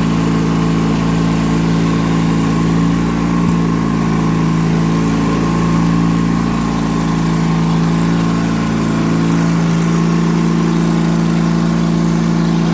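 Straight-piped Yard Machines riding mower engine idling steadily at an even speed.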